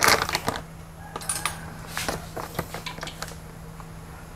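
Plastic flour bag crinkling loudest at the start, then a metal spoon scooping flour and clicking lightly against a ceramic plate a few times.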